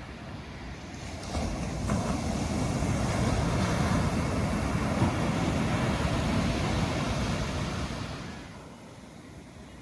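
Surf: a wave breaking and rushing up the beach, swelling about a second in and dying away near the end.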